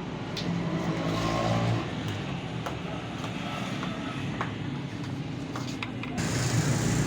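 Steady hum of a running motor vehicle engine in the background, with a few light metallic clicks of bolts and a spanner being handled as the timing gear bolts are fitted.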